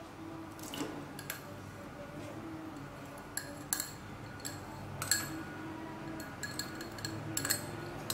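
Scattered light clinks and taps of kitchenware on a dimpled aluminium saucepan as margarine is tipped in from a small clear dish, with a quick cluster of clicks near the end.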